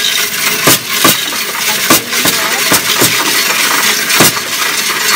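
Coinstar coin-counting machine running as mixed coins are fed from its tray into the counter, with a continuous metallic rattle and sharp clinks at irregular intervals.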